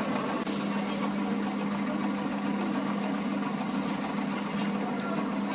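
Steady low hum of a running machine, with brief rustles of a plastic bag and sesame seeds poured through a funnel.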